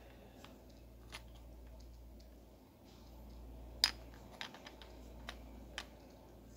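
Scattered small clicks and taps of a flashlight's tip knocking and sliding against a rough hand-held stone, with one sharper tap a little under four seconds in. A faint low hum runs underneath.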